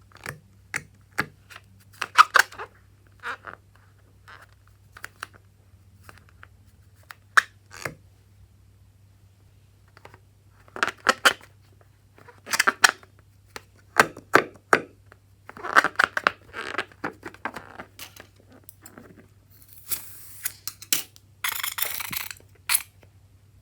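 Scattered handling sounds of slime-making with balloons and supplies: sharp clicks, snips and plastic crinkling in short bursts, with a longer hissing rustle near the end.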